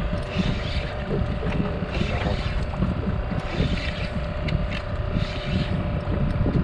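Steady drone of a fishing boat's engine, with wind buffeting the microphone.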